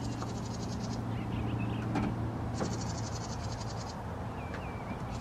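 Outdoor ambience: an insect's fast pulsing trill for about a second and a half, a few short bird chirps, a steady low hum, and a couple of faint clicks.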